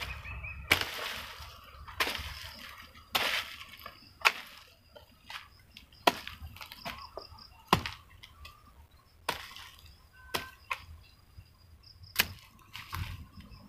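Hoe blade chopping into soil and dry palm fronds: irregular sharp blows, roughly one a second, with scraping and rustling between them.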